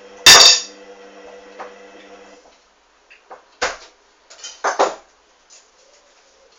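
Hoover Dynamic front-loading washing machine in its main wash: the drum motor hums steadily with a loud knock near the start, then stops about two and a half seconds in. A few separate clunks and clicks follow while the drum rests.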